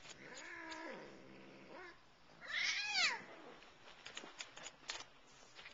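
Siamese cat yowling during a scrap: a long, wavering low yowl, then a louder call that falls in pitch, followed by a few light clicks near the end.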